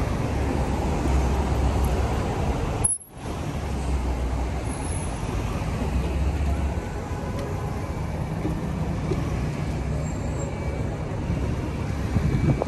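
City street traffic: a steady low rumble of vehicle engines and road noise, strongest in the first half. The sound cuts out for a moment about three seconds in.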